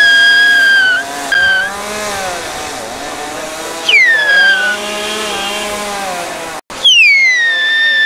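Two-stroke chainsaw cutting a eucalyptus up in the tree, revving in three bursts: near the start, about four seconds in and about seven seconds in. Each burst falls in pitch as the saw works, and between bursts it runs at a lower, wavering speed.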